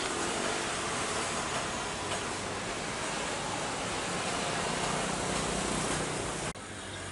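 Jet airliner's engines heard from a distance as it rolls along the runway: a steady rushing noise that swells slightly, then cuts off suddenly near the end, leaving a quieter hiss.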